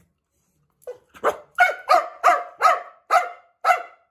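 Black-and-tan dachshund barking in a quick run of about eight sharp barks, roughly three a second, starting about a second in. The barking is the dog answering the offer to go out, asking to be taken along.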